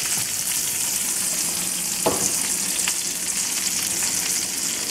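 Filet mignon steaks sizzling in a frying pan, a steady hiss of frying with a light tap about three seconds in.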